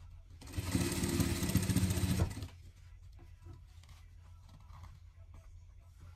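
Industrial single-needle sewing machine stitching in one run of about two seconds, topstitching fabric with a fast, even needle rhythm and motor whine, then stopping. A low steady hum continues after it stops.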